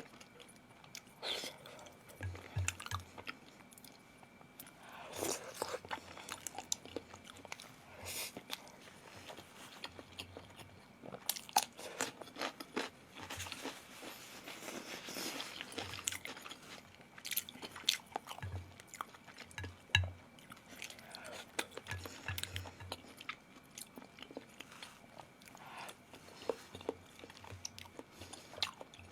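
A person chewing and biting food close to the microphone, with irregular crisp clicks and crunches.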